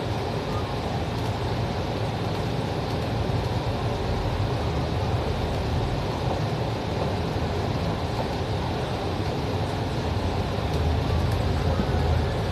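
Steady low engine rumble and road noise of a bus moving slowly in heavy traffic, heard from on board, growing a little louder near the end.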